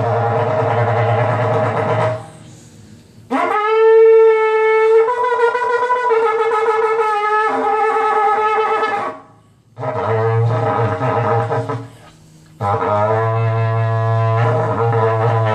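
Berrante, the Brazilian cattle-calling horn made of ox horn, blown in four long blasts. The first and last two are a low buzzing drone, each broken off by a short pause; the second, from about three seconds in, is a clear higher note that rises as it starts and shifts pitch twice before stopping.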